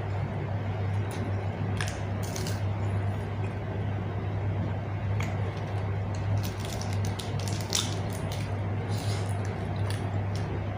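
A person chewing and eating close to the microphone: wet mouth sounds with scattered clicks and short crunches, over a steady low hum.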